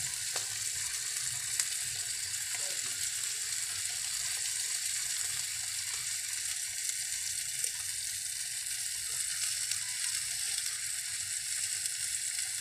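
Mackerel and its sauce sizzling steadily in aluminium foil over a grill fire, a constant high hiss with faint crackles here and there.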